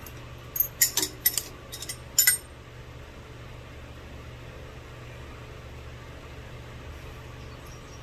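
Several sharp clicks and knocks of metal parts or tools being handled during the first two seconds or so, then only a steady low hum.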